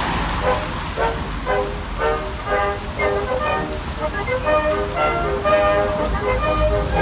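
Background music: a melody of short pitched notes, about two a second, over a low rumble.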